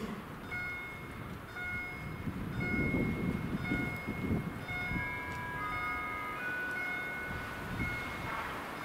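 The electronic warning sounders of a Polish automatic level crossing start ringing about half a second in, sounding repeated short chime tones: the crossing has been triggered by an approaching train. From about five seconds in the tones overlap more, as two sounders ring out of step. A low rumble, loudest around three to four seconds in, runs beneath them.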